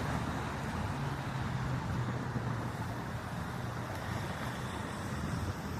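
Steady low hum of a vehicle engine with road-traffic noise.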